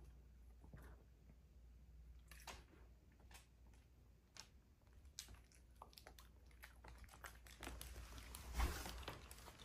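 Faint, scattered clicks of a small dog's claws on a wooden floor as it walks and sniffs around, with a denser patch of handling noise and a single louder thud near the end.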